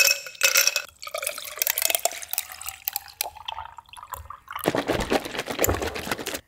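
Ice cubes clinking into a glass mason jar, then coffee poured over the ice, the pour's pitch rising as the jar fills. Near the end comes a louder pour as creamer goes in from a carton.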